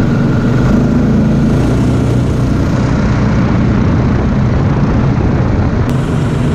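Snowmobile engine running steadily under way along a snow track, heard from on board the machine.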